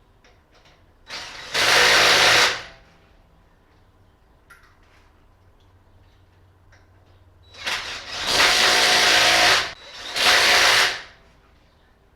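Cordless impact wrench run in three bursts on lug nuts during a wheel change: a short run, then a longer one and a brief one close together near the end.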